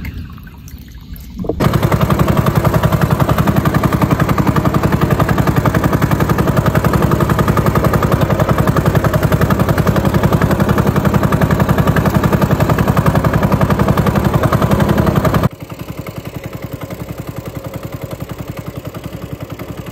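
The boat's small engine comes in loud about a second and a half in, running with a rapid, even pulsing. It drops suddenly to a quieter run about fifteen seconds in.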